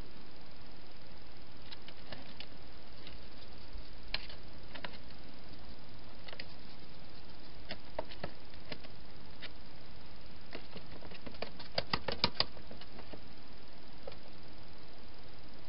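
A hedgehog eating at food bowls inside a plastic feeding box: scattered sharp clicks and crunches, with a quick run of five or six louder ones about twelve seconds in, over a steady hiss.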